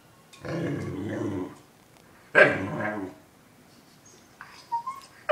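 A nervous dog growls low for about a second, then gives one sharp bark, and lets out a faint short whine near the end, all directed at a bone it is too afraid to take.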